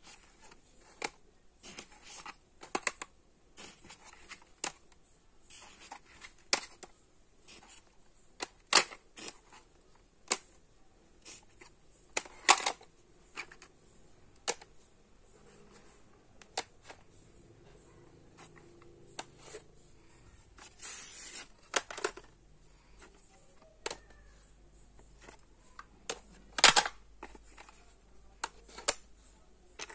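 Plastic audio cassette cases clacking as they are picked up, handled and set down on a concrete floor: irregular sharp clicks, a few much louder than the rest, with a short scraping rustle about two-thirds of the way through.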